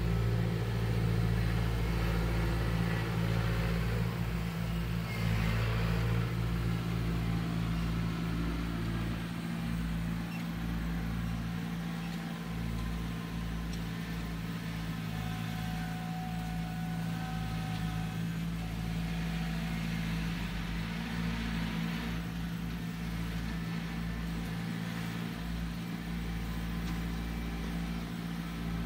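Engine of a machine hauling mud for backfill running steadily, a low drone that is a little louder in the first few seconds and then holds even.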